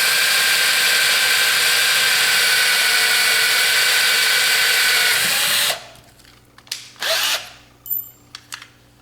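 Electric drill with a 1/8-inch bit drilling a pilot hole for a screw, running at a steady speed, then stopping abruptly a little under six seconds in. A few light clicks and handling noises follow.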